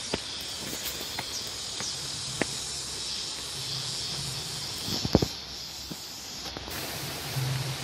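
Insects chirring steadily in the surrounding trees and undergrowth, with scattered footsteps on the concrete path and a few sharp knocks about five seconds in.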